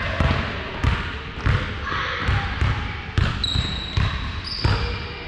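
Basketball being dribbled on a hardwood gym floor, about two bounces a second, echoing in the large hall. Two short high squeaks, sneaker soles on the floor, come in the second half.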